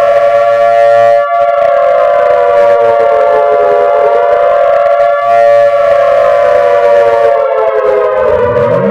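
Civil defense sirens wailing, several tones sounding together, some held steady while others sag and rise slowly in pitch. Near the end another siren winds up, rising from a low pitch.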